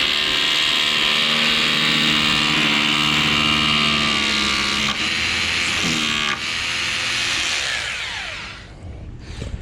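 Electric drill running steadily under load, its motor pitch dipping briefly twice, then winding down with a falling whine near the end.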